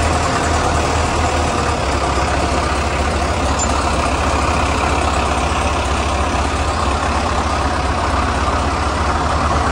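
Tractor diesel engine running steadily close by, its low firing pulse even, while a tractor tows a loaded trolley by chain.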